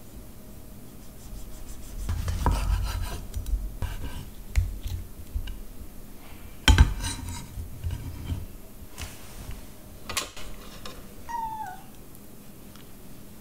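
Chef's knife slicing a tomato and then fresh mozzarella on a wooden cutting board: scraping strokes and knocks of the blade on the board, the loudest knock about seven seconds in. A short falling cat meow a little past eleven seconds.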